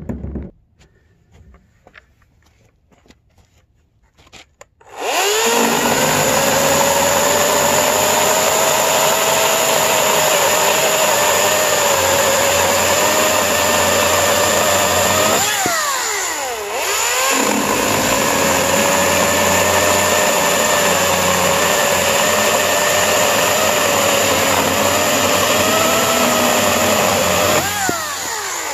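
EGO 14-inch battery-powered chainsaw starting about five seconds in and cutting through a wooden beam, its pitch wavering as the chain bites. About halfway the motor winds down and back up once, and it winds down again right at the end.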